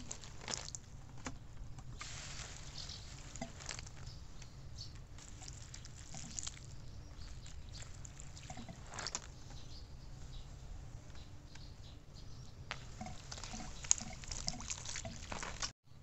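Water from a garden hose pouring onto soil and plastic mulch around young cucumber seedlings, with irregular pattering and splashing. It stops abruptly near the end.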